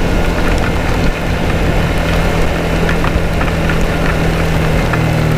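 Motorcycle engine running at a steady cruise with wind noise, while raindrops tick against the helmet and camera; the engine note shifts near the end.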